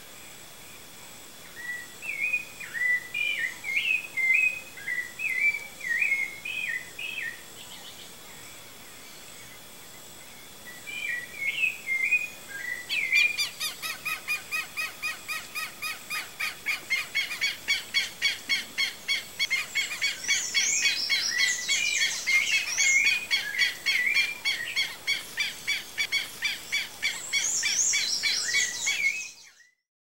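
Birds singing: a warbling phrase of short notes repeated several times, then a fast, steady run of calls joined by higher chirps, fading out at the very end.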